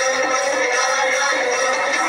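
Recorded song playing steadily, the dance music for the performance.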